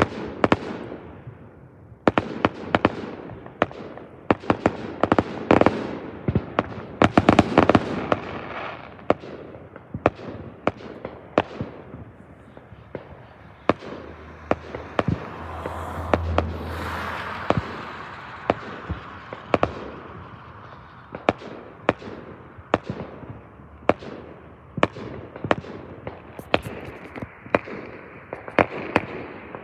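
Aerial firework shells bursting one after another in a fireworks display: a long, irregular string of sharp bangs and crackling pops, thickest in the first few seconds and again near the end.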